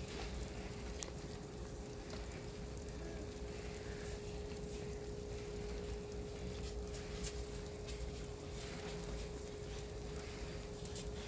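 Quiet outdoor background noise with a low rumble and a faint steady hum, and a single sharp click about a second in.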